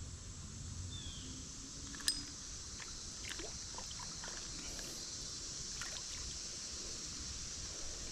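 Creek-side outdoor ambience: a steady high hiss with a low rumble beneath, scattered light ticks, and one sharp click about two seconds in.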